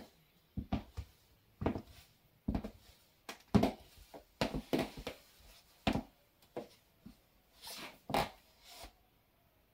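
Stiletto high heels clicking on a hardwood floor in uneven walking steps, about one a second.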